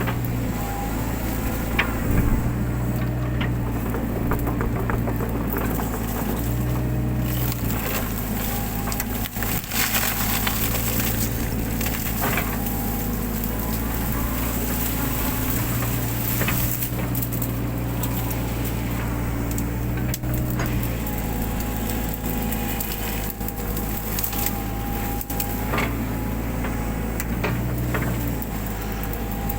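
Mini excavator's engine running steadily with its hydraulic whine stepping up and down in pitch as the arm is worked, over repeated cracks and snaps of brush and undergrowth being crushed and broken.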